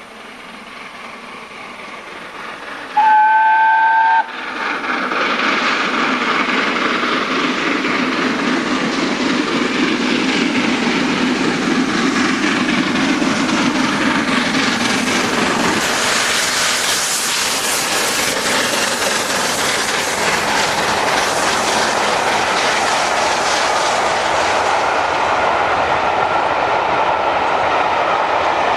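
Steam locomotive 60163 Tornado approaching, sounding its whistle once for about a second, then rushing past at speed with its train of carriages clattering by over the rails.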